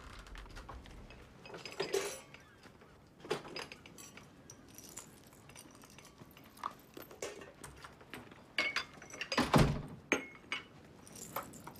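Crockery, glasses and cutlery clinking and knocking as a room-service breakfast table is set, in scattered small clicks. About nine and a half seconds in comes a heavier thump, as a door is pushed shut.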